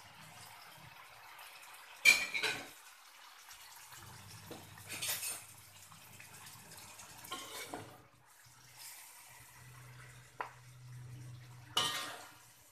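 Metal utensil scraping and clanking against an aluminium wok while a thick, saucy chicken dish is stirred and dished up, in a few separate sharp clatters, the loudest about two seconds in and near the end.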